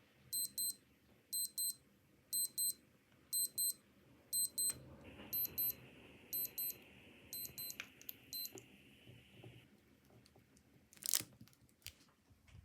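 Old digital watch alarm beeping in quick high-pitched pairs, about one pair a second, fading slightly before stopping about eight and a half seconds in. A steady hiss joins partway through, and a sharp click comes near the end.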